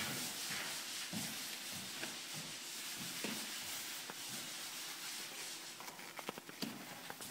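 Thin plastic masking sheet rustling and crinkling as hands press and smooth it onto double-sided tape. Small scattered ticks and taps, more frequent near the end.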